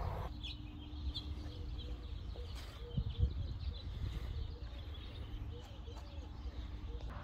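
Birds calling outdoors, a string of short repeated calls with a few higher chirps, over a steady low rumble. A couple of brief knocks come about three seconds in.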